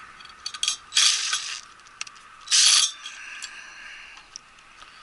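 Hand tools working metal parts of a wall furnace: scattered small metallic clicks and two short, loud rasping bursts, about a second and two and a half seconds in, ratchet-like, as a misplaced set screw is being dealt with.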